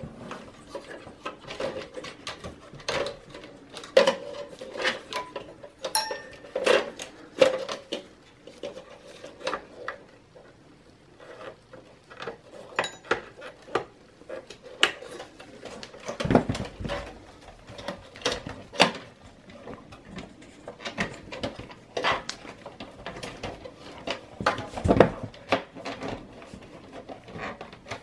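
Irregular clicks, taps and light rattles of cables, plastic connectors and the sheet-metal chassis of a Dell OptiPlex small-form-factor PC, as the new power supply's CPU power plug is pushed in and its wires are routed along the case edge.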